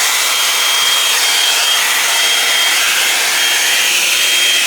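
Drybar Double Shot blow-dryer brush running on full power: a steady rush of hot air with a high motor whine.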